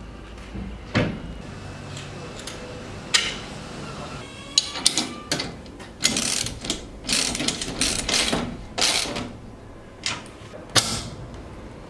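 Bolts being fitted to a steel shelter frame with a ratchet spanner: a few single knocks, then a run of short bursts of ratcheting clicks in the middle.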